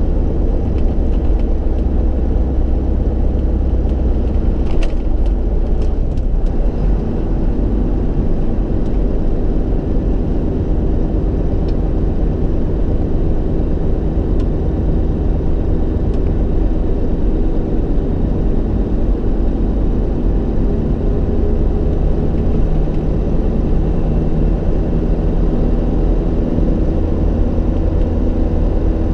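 Tatra 8x8 truck running on the road, heard inside the cab: a steady low engine drone with road noise.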